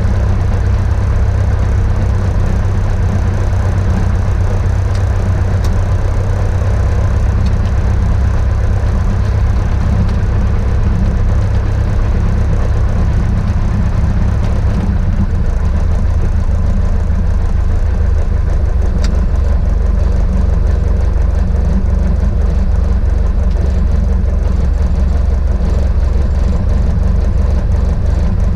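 Beechcraft Musketeer's single piston engine and propeller running steadily at taxi power, a loud even drone heard from inside the cabin.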